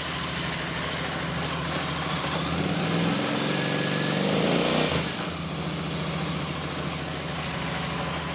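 Royal Enfield Super Meteor 650's 648 cc parallel-twin engine running at idle. Its speed rises briefly about three seconds in, then settles back to a steady idle.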